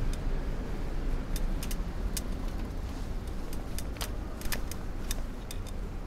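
Low wind and road rumble from a bicycle ride, with irregular sharp clicks and rattles from the bike.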